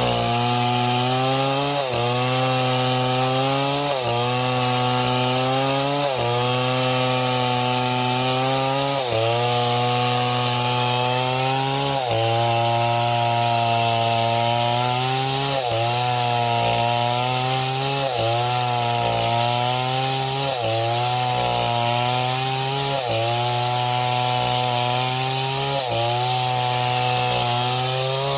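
Chainsaw running at high speed while cutting wood, its engine pitch dipping and recovering every second or two as the chain bites and frees.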